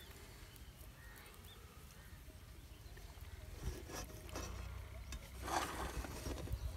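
A slotted spatula clicking a few times against a nonstick frying pan, then a short scrape near the end, as egg-wrapped toast is turned in the pan, over a low wind rumble.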